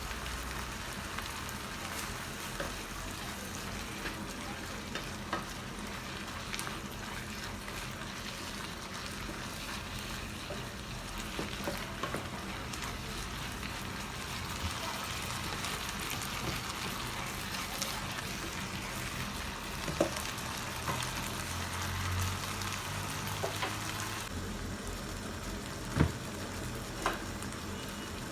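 Chopped vegetables and spices sizzling steadily in hot vegetable oil in a frying pan as they are stirred, with a few sharp knocks in the last third.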